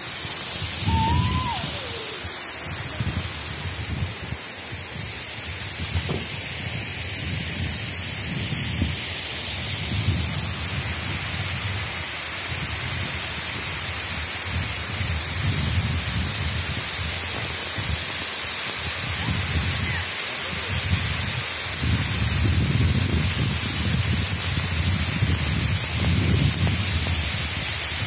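Mountain waterfall rushing: a steady hissing roar of falling water over rock, with an uneven low rumble that swells and fades underneath.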